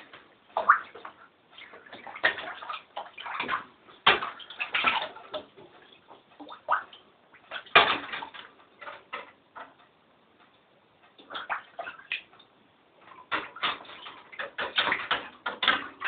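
Water splashing and sloshing in irregular bursts as a pet mink plays in it, with a quieter lull a little past the middle.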